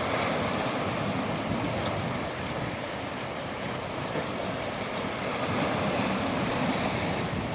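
Ocean waves washing in, with wind blowing; a steady rush that eases slightly in the middle and builds again toward the end.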